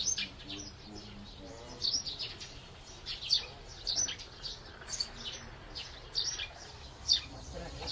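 Small birds chirping: many short, high chirps come quickly one after another throughout.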